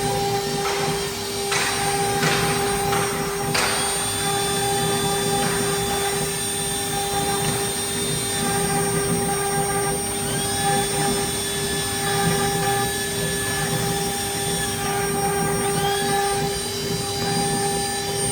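CNC router spindle running steadily with a high whine while it cuts stone. There are a few short bursts of grinding noise in the first few seconds, and higher tones that glide in and then fade around the middle and again near the end.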